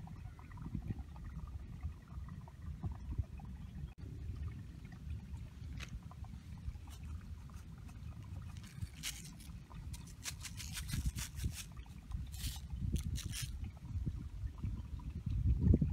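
Steady low rumble of wind buffeting the microphone, with a cluster of brief crinkling bursts from about nine to thirteen seconds in as the plastic sheet under the meat is handled.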